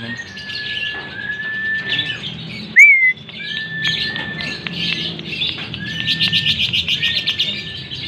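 Caged lovebirds chirping in a fast, unbroken chatter, with one loud sharp chirp about three seconds in. Long, level whistled notes of about a second each come again and again over the chatter.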